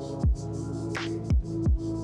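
Electronic background music: held synth chords with a deep kick drum that drops in pitch, hitting once near the start and twice in quick succession past the middle, with light hi-hat ticks.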